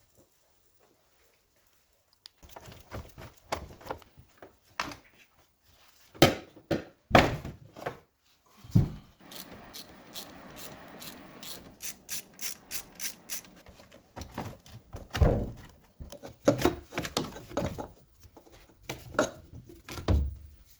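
Tools and metal engine parts clanking and knocking during engine disassembly: a long run of separate sharp knocks and clicks, with a stretch of steady noise in the middle.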